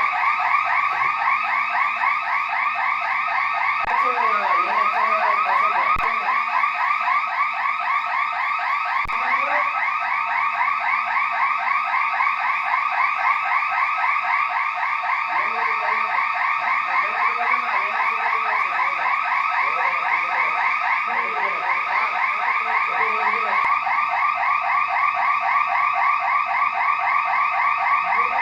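Bank security alarm siren sounding continuously, an electronic warble repeating rapidly and evenly. It was set off by a short circuit after rain, not a break-in.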